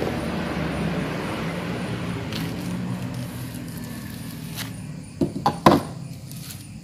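A road vehicle passing and fading away, then a few sharp taps and rustles about five seconds in as a long rifle barrel is handled.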